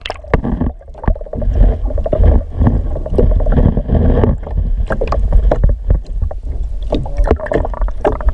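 Water sloshing in a tub of live groupers, heard muffled through a submerged microphone, with a heavy low rumble and many sharp knocks and bumps throughout.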